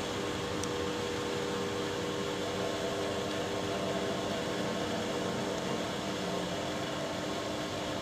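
Finnish VR Sr2 electric locomotive running light at low speed: a steady electrical hum with several steady tones over a hiss, a higher tone joining about two and a half seconds in.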